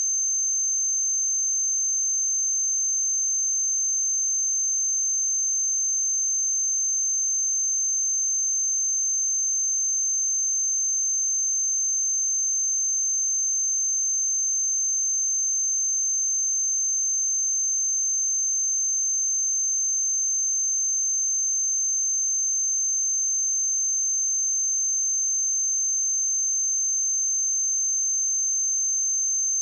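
Pure 6276 Hz sine-wave test tone, a single steady high-pitched whistle-like tone held at constant pitch and level.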